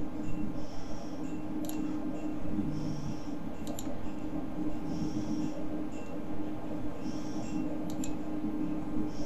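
Steady low hum and room noise, with a faint high chirp repeating about every two seconds and a few sharp clicks of a computer mouse being clicked.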